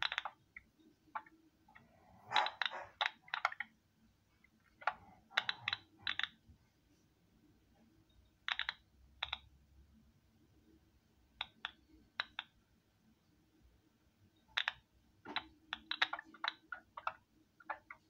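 Irregular runs of computer-keyboard typing heard over a phone line through a speakerphone, the keystrokes coming in short clusters with pauses between.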